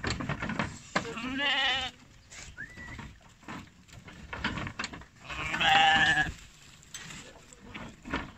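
Kangal lambs bleating twice: a quavering bleat about a second in and another around five and a half seconds in. Scattered knocks and thumps of hooves on the truck's wooden floor and ramp as the lambs are unloaded.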